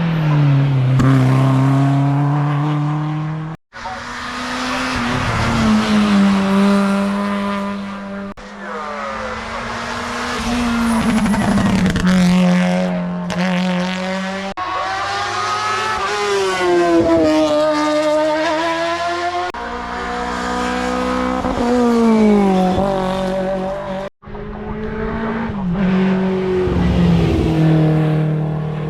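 Race cars' engines at a hill climb, revving hard with the pitch climbing and dropping through gear changes as they drive past. The sound comes in several short segments that cut off abruptly four times, each picking up on another run.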